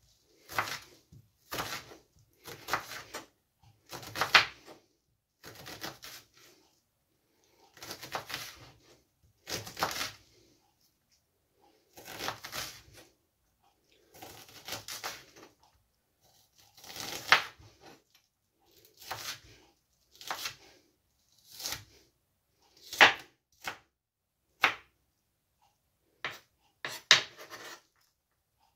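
Chef's knife slicing and chopping an onion on a wooden cutting board: separate cuts, each ending with the blade striking the board, about one every second, with silent gaps between them.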